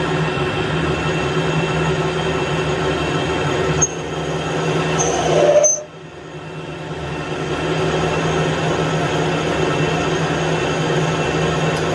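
Metal lathe running and turning a steel shaft, a steady machine hum. About four seconds in the sound changes, building to a rising squeal, then drops off sharply near the middle before the steady running returns over the next couple of seconds.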